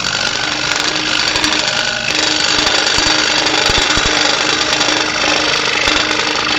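A 30-inch Pegas scroll saw cutting thin walnut with a coarse blade. The saw runs steadily with a dense sawing noise and a steady hum, and starts abruptly.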